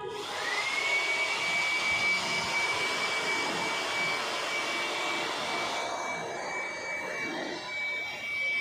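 Electric power tool motor spinning up to a steady high-pitched whine over a rushing noise, holding constant speed, then starting to wind down at the end.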